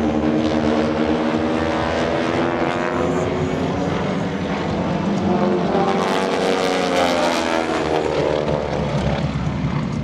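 Four North American T-6 Texans flying overhead in formation, their nine-cylinder Pratt & Whitney R-1340 radial engines and propellers droning together, the pitch bending as the formation passes.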